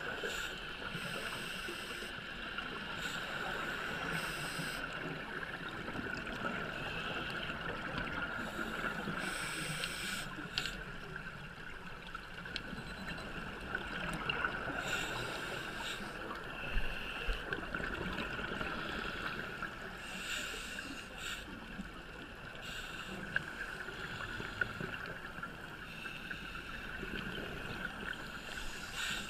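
Scuba diver breathing underwater through a regulator, with a hissing breath and a rush of bubbles every few seconds over a steady hum.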